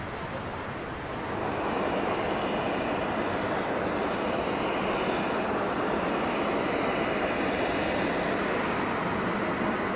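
Jet engines of a taxiing Boeing 777 airliner, a steady rushing hum with a faint high whine. It grows louder about a second in and then holds steady.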